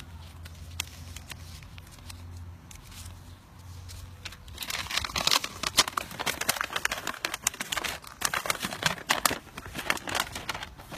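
Packaging being handled, crinkling and crackling irregularly from about four seconds in, after a low steady hum at the start.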